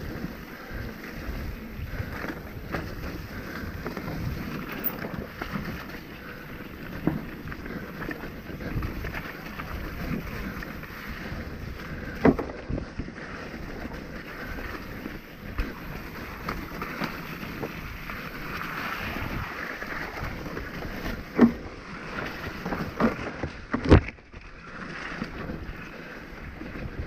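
Mountain bike rolling down a dirt forest trail: a steady rumble of tyres on dirt and leaves with wind noise, broken by a few sharp knocks as the bike rattles over bumps, the loudest about three seconds before the end.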